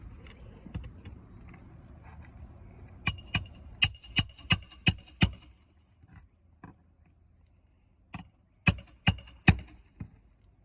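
Roofing nails being driven into shingles: a quick run of about seven sharp, ringing shots, about three a second, then after a pause another four near the end. The shots are loud enough to sound like gunshots.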